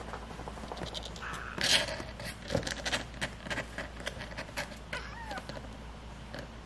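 Young kittens in a cardboard box: quick scratches and clicks as they clamber about, one louder rustle about two seconds in, and a faint mew or two about five seconds in.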